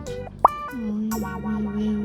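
Background music: a melody of plucked, guitar-like notes over a held low note, with a sharp click about half a second in.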